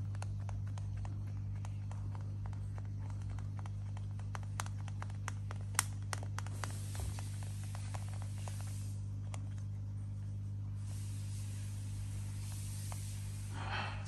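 An animal hissing in two long stretches of a couple of seconds each, over a run of light clicks and taps. A brief louder rasp comes near the end, and a steady low hum runs underneath.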